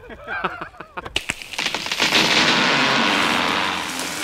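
A man laughing briefly. About a second in, a loud edited transition sound effect starts: a few sharp crackles that swell into a long rushing blast, easing slightly near the end.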